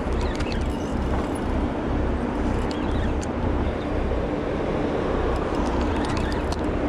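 Boat engine running, a steady low rumble with a faint hum over it, and a few light clicks of gear being handled close by, near the start and near the end.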